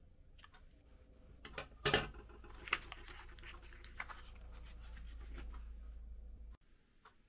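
A single sharp scissors snip through the cord of a clothing hang tag, followed by the crackly rustle of the paper tag being handled and pulled away.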